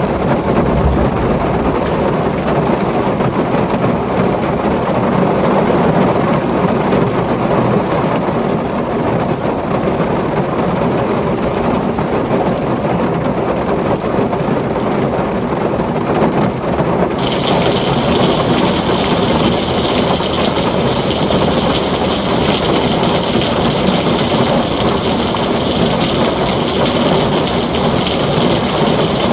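Heavy rain drumming steadily on a tin roof, with a low rumble of thunder under it. About two-thirds of the way through, a brighter, hissier layer of rain cuts in suddenly.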